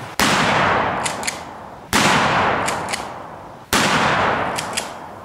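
Three gunshots about 1.8 seconds apart, each trailing off in a long echo, with a pair of faint clicks following each shot.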